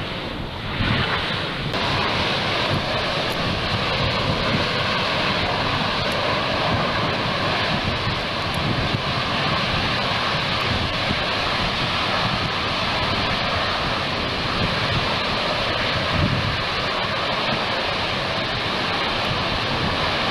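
Steady rushing hiss of gas and steam jetting from a lava spatter cone's vent, louder from about a second in, with wind rumbling on the microphone.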